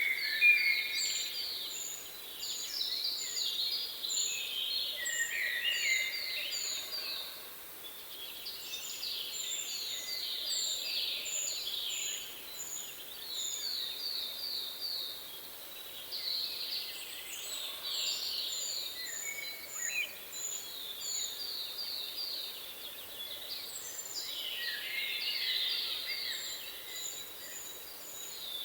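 Several songbirds singing at once. A very high, thin note repeats about twice a second, over repeated runs of quick descending notes and occasional lower whistles.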